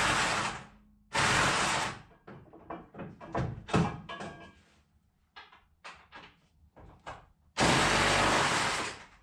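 Garage work sounds: three bursts of rushing noise about a second each, near the start, about a second in and near the end, with scattered knocks and clanks of tools or metal parts between them.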